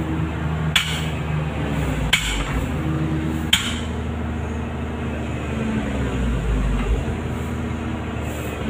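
Caterpillar 320D excavator's C6.4 diesel engine running steadily, heard from inside the cab. Three sharp knocks come about one, two and three and a half seconds in.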